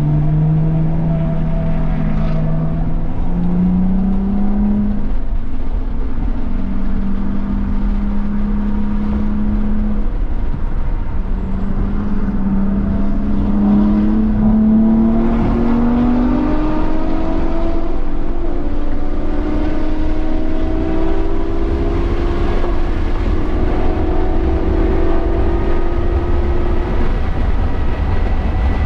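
2017 BMW M240i's turbocharged inline-six running under load on track, its note rising in stretches and holding steady between them, then climbing steadily through the second half. A constant low rumble sits under it throughout.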